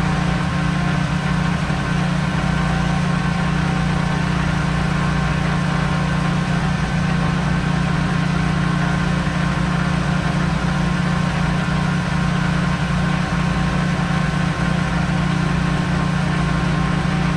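Pressure washer running steadily, its engine humming evenly under a constant hiss, while washing road salt off plow trucks.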